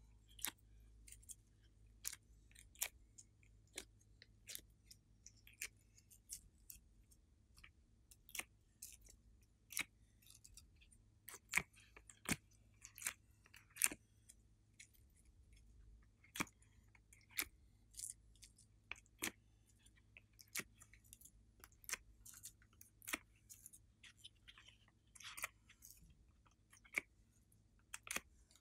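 Glossy slime being pushed and peeled out of a silicone honeycomb ice-cube mould: irregular sticky clicks, pops and short squelches, several a second at times.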